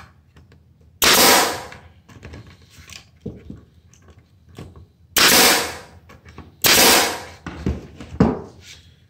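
Pneumatic air stapler firing three shots, driving staples into the wooden box. Each is a sudden sharp shot that trails off over about half a second; the first comes about a second in, the last two about a second and a half apart. A lighter knock follows near the end.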